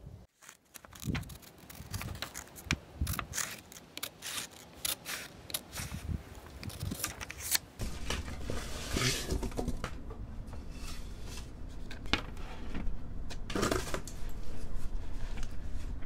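Scissors cutting a paper template for a sewing-machine speed controller cover: a run of quick sharp snips, then two longer rustling cuts later on.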